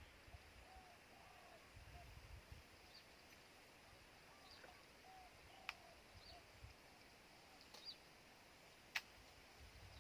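Near silence outdoors: faint, short bird chirps now and then, light wind rumble, and two sharp clicks, one about halfway through and a louder one near the end.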